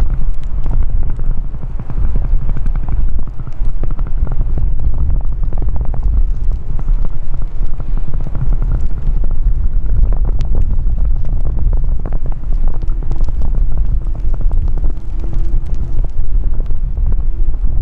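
Storm-force wind buffeting the microphone in heavy, constant gusts of rumble and crackle. A faint steady tone joins about two-thirds of the way through.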